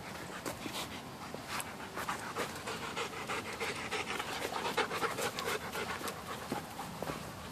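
Young Blue Bay Shepherd panting rapidly, close to the microphone, loudest around the middle.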